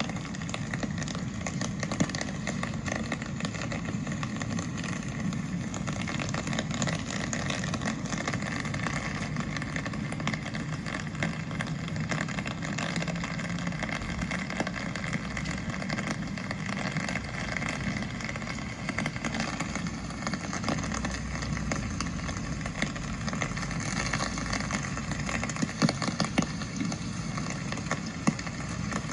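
Steady rain falling, a dense patter of fine drop ticks, over a low rumble of street traffic that grows louder about twenty seconds in.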